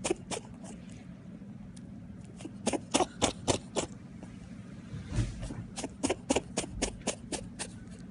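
Domestic rabbit sneezing repeatedly: a run of short, sharp sneezes, several a second, coming in two bouts, one about two and a half seconds in and another from about six seconds in.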